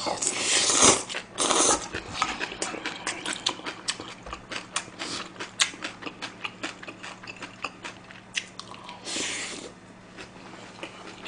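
Close-miked eating of soft tofu stew and fried rice. There are wet slurping bursts as mouthfuls go in near the start and again about nine seconds in, and rapid chewing and lip-smacking clicks in between.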